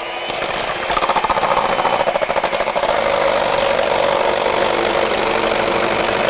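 Electric hand mixer running steadily, its beaters whipping cream in a plastic bowl. It gets louder about a second in.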